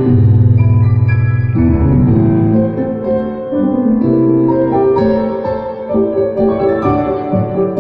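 Three pianos played together live. A low bass chord is held for about the first second and a half, then moving melodic lines and chords follow.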